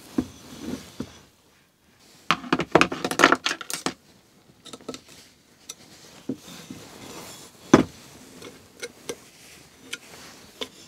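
Small metal clicks and clinks of a thin tool and Headshok fork parts being handled at a workbench, with a dense spell of clattering early in the first half and one sharp click later on.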